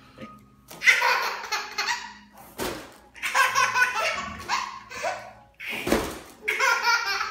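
Babies laughing in repeated fits of giggles, starting about a second in. Two dull thumps come in, about two and a half seconds and six seconds in.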